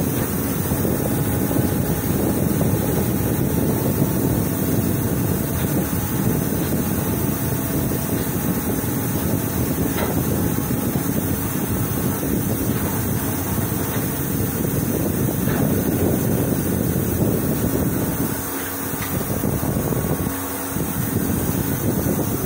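Steady low rumble of heavy workshop machinery running, dipping briefly twice near the end.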